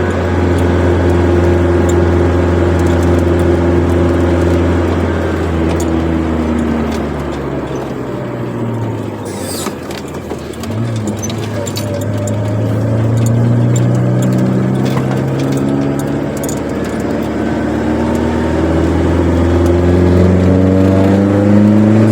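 Chevrolet Corsa engine with a sport exhaust, heard from a car being driven. Engine speed falls away over several seconds around the middle, picks up again and holds, then climbs toward the end and drops suddenly.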